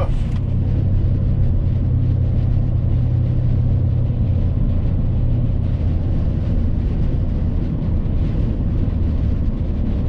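Steady low rumble of a vehicle's engine and tyres, heard from inside the cabin while driving at highway speed on a snow-covered road.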